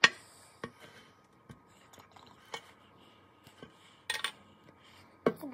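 Small plastic bottles and a stirring stick clicking and tapping against a clear plastic cup as slime ingredients are squeezed in. A sharp click at the start, then scattered light ticks and a brief rustle about four seconds in.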